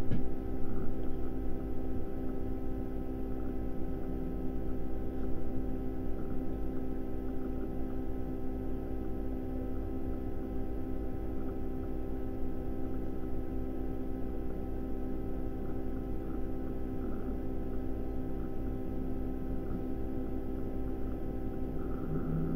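A steady electrical hum made of several held tones, with a louder low tone coming in near the end.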